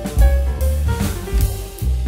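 Background music with a steady beat: a jazzy track with drum kit, bass and pitched melody notes.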